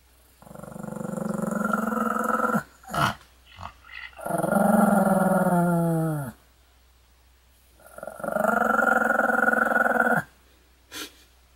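A Pomeranian growling in three long, drawn-out growls, the middle one falling in pitch as it ends, with short sharp sounds between them.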